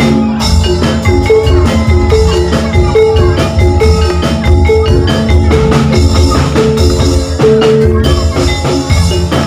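Oklik ensemble playing: tuned bamboo percussion struck with mallets in a quick repeating melodic figure over a steady low drum beat.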